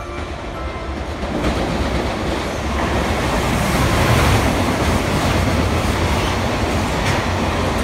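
A freight train hauled by a JR Freight EF210 electric locomotive passing at speed, followed by container wagons. The sound grows louder over the first few seconds as the locomotive arrives, then holds as a steady noise of the wagons rolling by.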